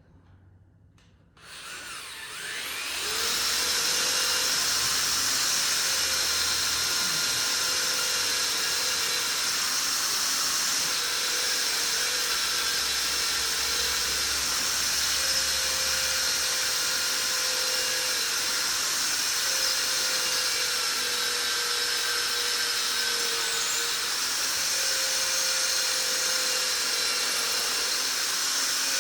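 Electric drill spinning up about two seconds in, then running steadily with a slightly wavering whine.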